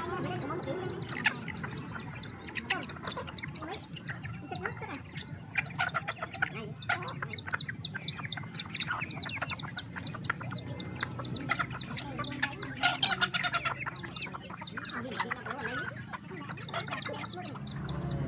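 Flock of chickens feeding, clucking, over a fast, nearly continuous run of short, high, falling chirps.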